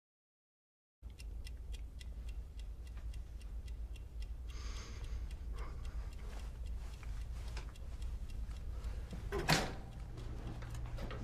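A mechanical wall clock ticking evenly, several ticks a second, over a low steady room hum, starting about a second in. A short louder noise breaks in near the end.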